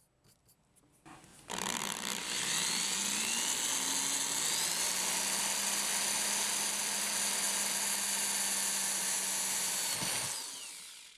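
Electric drill boring a hole through a thin metal gas-grill burner tube, a few light clicks of handling before it starts. The motor speeds up over its first few seconds, runs steadily for about five seconds, then winds down near the end.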